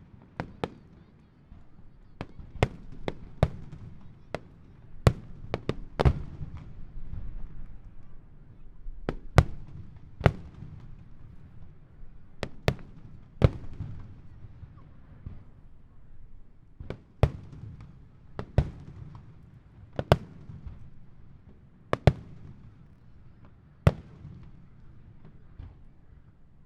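Aerial fireworks bursting in an irregular series: sharp reports every second or two, some louder than others, over a low rumble.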